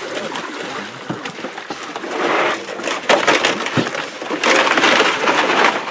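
Three bursts of crinkling, crunching noise with scattered clicks from harvested milkfish being packed in plastic bags and boxes, the last burst the longest and loudest.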